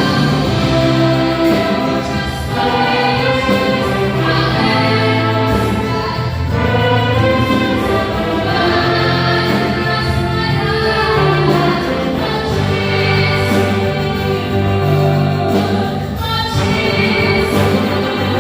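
Gospel band playing a praise song live, with voices singing over the instruments and a steady bass line.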